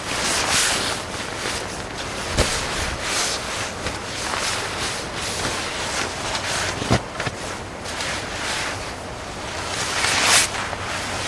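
Wind gusting, a rushing hiss that swells and fades, with two sharp knocks about two and a half and seven seconds in.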